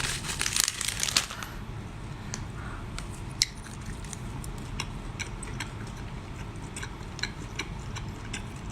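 Crinkling and rustling for about the first second, then close-up eating: soft squishy chewing with scattered sharp clicks.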